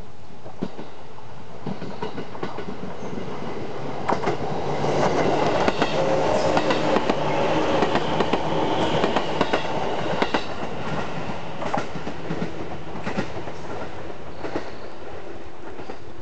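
A JR Senseki Line 205-series electric commuter train passes close by. Its wheels clack over the rail joints over a steady hum. The sound builds from about four seconds in, is loudest in the middle, and fades away near the end.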